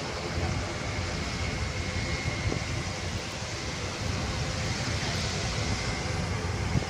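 Engines of a large Airbus display aircraft: a steady, heavy rushing noise with a faint high whine that rises and fades.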